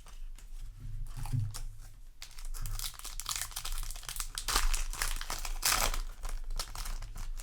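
Foil booster pack wrapper crinkling and tearing as it is handled and opened. The rustling grows dense about two seconds in.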